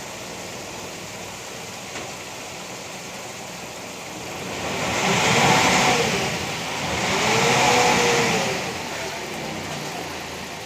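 Motorboat engine on a canal, swelling twice, each time rising and then falling in pitch, over a steady rush of water and wind.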